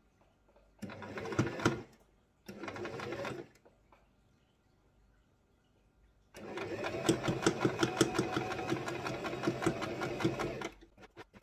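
Semco Indigo domestic electric sewing machine stitching in three runs: two short bursts of about a second each, then a longer run of about four seconds, the needle going in a fast, even rhythm. A few light clicks follow near the end.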